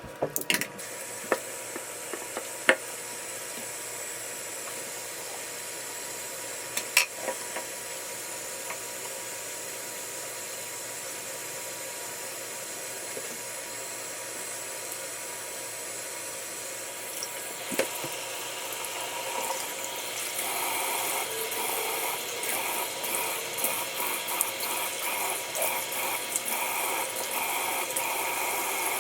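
Bathroom sink tap running steadily, with a few light knocks early on. About twenty seconds in, the water sound grows louder and uneven, as water is splashed at the basin.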